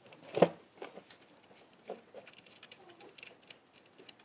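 A sharp knock about half a second in, then scattered light clicks and taps of small parts and hand tools being handled.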